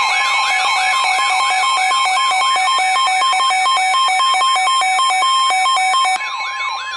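Weather radio alert alarm for a tornado warning: a loud siren-like warble sweeping up and down about three times a second over a steady high tone. It drops slightly in level about six seconds in.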